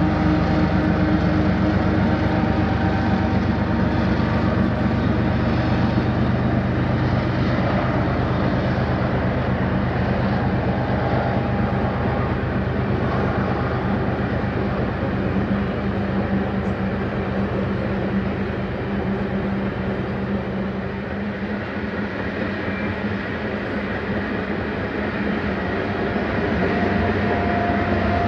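Canadian Pacific freight train passing: diesel locomotive engines running with a steady low hum over the continuous rumble of the wagons on the rails. The sound eases a little after the middle and builds again near the end.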